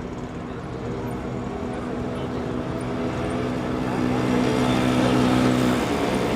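Steady engine-like hum holding one low pitch, growing louder from about four seconds in.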